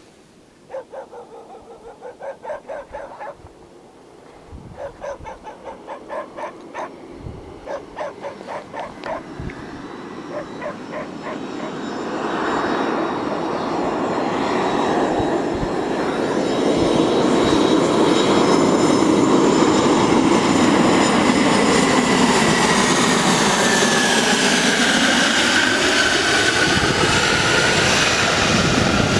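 Yakovlev Yak-42 on landing approach, its three Lotarev D-36 turbofans building from about twelve seconds in to a loud, steady roar with a whistle that slowly slides down in pitch as the jet passes. Before the jet grows loud, a dog barks in quick runs.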